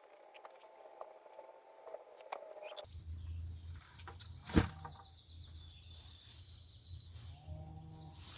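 Insects chirring steadily in the background, with a low rumble beneath them and a single sharp knock about four and a half seconds in. For the first few seconds there is only a faint hum, and then the sound switches over abruptly.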